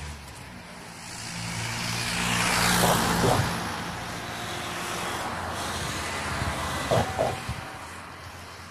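Road traffic passing close on a town street: a car's engine and tyre noise swell to a peak about three seconds in and fade, then another vehicle follows. Two pairs of short thumps come about three and seven seconds in.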